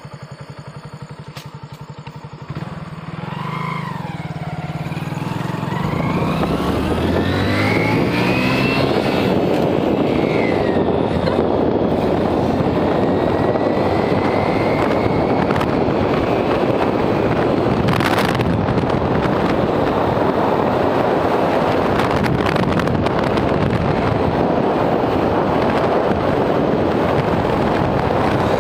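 Motorcycle engine idling, then pulling away and accelerating, its pitch rising several times through the gears over the first ten seconds or so. After that comes a loud, steady rush of engine and wind noise as the bike rides at speed, with one sharp knock about eighteen seconds in.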